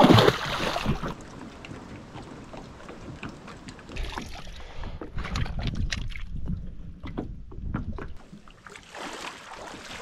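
A boat anchor and its chain hitting shallow water with a loud splash, followed by lighter splashing, sloshing and clinks in the shallows.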